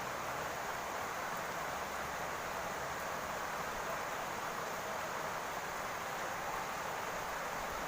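Steady rain falling on a roof, an even, unbroken hiss.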